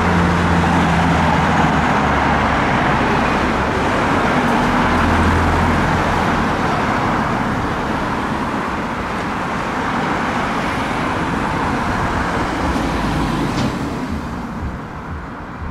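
Road traffic passing along a street: the steady rush of cars and other vehicles going by, with engine hum in the first few seconds, dying away near the end.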